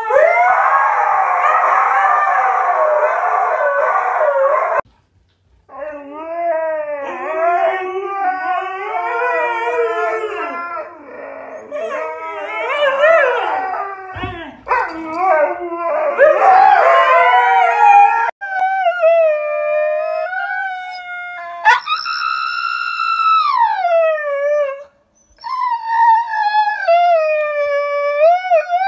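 Siberian huskies howling and 'talking': long, pitched howls that bend up and down in pitch, several dogs overlapping at first, then single drawn-out howls that glide up and fall away. The sound breaks off briefly twice.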